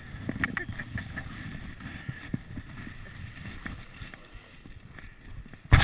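Ski-bike's skis running over packed snow, a steady rough rumble and scrape, with scattered clicks and knocks from the frame and wind on the chest-mounted microphone. A sudden loud rush of noise comes near the end.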